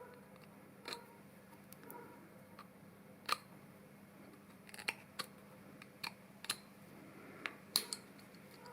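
A string of about ten sharp, irregular clicks and taps of small metal parts being handled, over a faint steady hum.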